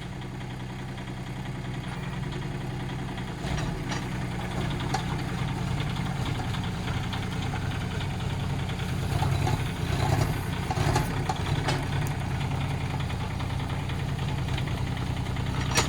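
Kubota K008-3 mini excavator's three-cylinder diesel running steadily, with a few short knocks from the machine as it works.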